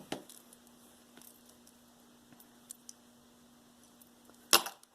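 Metal panel bracelet being handled, with a few faint light clicks and then one sharp metallic clack near the end. A faint steady hum runs underneath.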